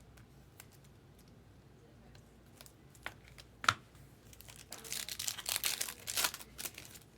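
Trading-card pack wrapper crinkling for about two seconds as it is torn open, after a single sharp click just past halfway and a few faint taps of cards being handled.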